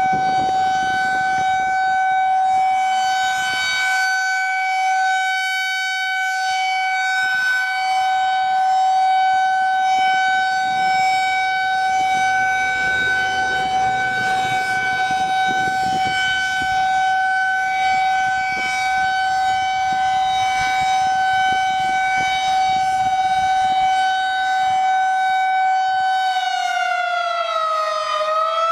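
Federal Signal 2001-SRN electromechanical outdoor warning siren sounding a test, holding one steady high tone. Near the end its pitch dips and climbs back up, as in one cycle of a long fast wail.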